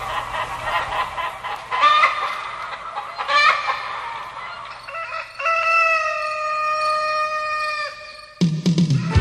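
Chickens clucking in short broken calls, then a rooster crowing in one long held call. A band's dance music with a drum beat starts just before the end.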